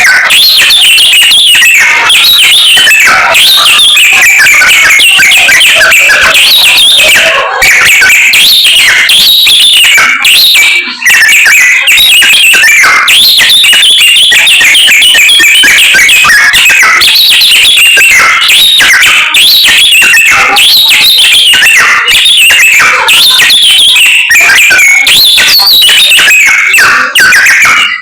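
A samyong songbird singing loudly without stopping: a long, fast stream of whistled notes and trills, broken only by a couple of very short pauses.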